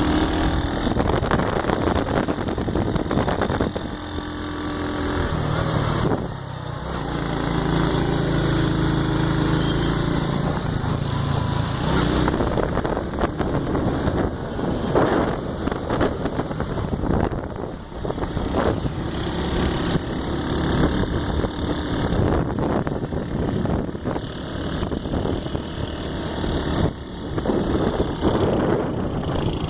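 A vehicle's engine running steadily, its pitch shifting up and down several times, over a constant rushing noise.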